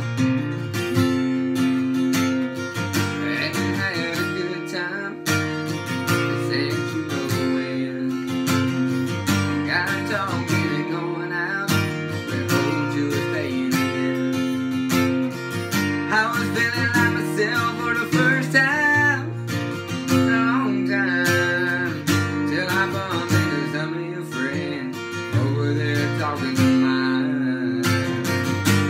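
Steel-string acoustic guitar strummed in a steady rhythm, with a young man's voice singing along over it.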